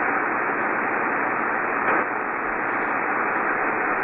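Steady shortwave band noise hissing from a Yaesu FT-1000MP Mark V receiver tuned to 3.933 MHz on the 75-meter band, in a gap with no station transmitting.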